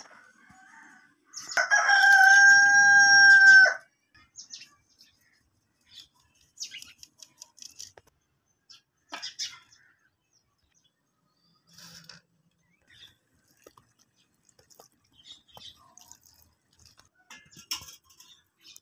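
A rooster crows once, one long held call of about two seconds. After it come faint, scattered clinks and scrapes of steel bowls as flour is scooped into a steel basin.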